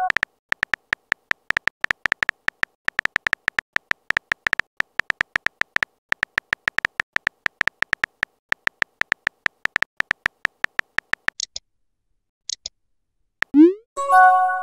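Phone on-screen keyboard typing clicks, rapid and irregular, each with a short high beep, stopping about eleven seconds in. A few short high blips follow. Near the end comes a quick rising whoosh and a brief chime as the message is sent.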